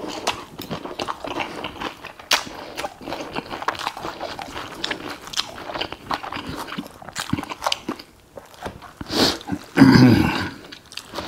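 Close-miked chewing of food: irregular wet crunching, smacking and crackling clicks, with a brief voiced hum from the eater just before the end.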